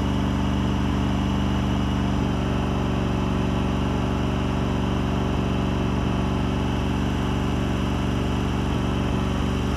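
John Deere LX188 lawn tractor's Kawasaki engine running steadily and evenly on its original carburetor, after a fuel pump and fuel line replacement that got it running well again.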